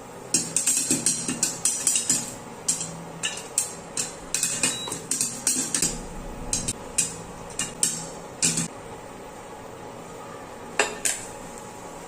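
Popcorn kernels popping inside a pressure cooker, sharp pops hitting the metal pot. The pops come thick and fast at first, then thin out to a couple of last pops near the end as the batch finishes.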